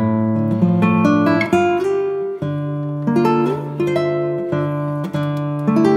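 Background music: a guitar playing chords that change every second or so over held low bass notes.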